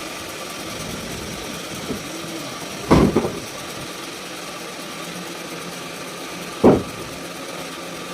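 Sawmill machinery running steadily, broken by two loud thumps, one about three seconds in and one about six and a half seconds in.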